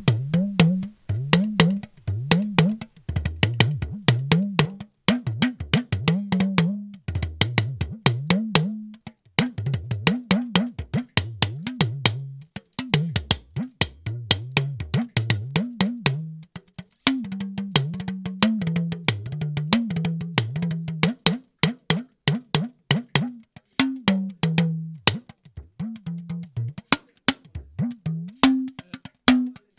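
Recorded talking drum playing back: sharp stick strokes in a fast, uneven rhythm, each note bending up and down in pitch. This is the track recorded with a Shure SM58 dynamic microphone, running through a Pultec-style EQ plugin.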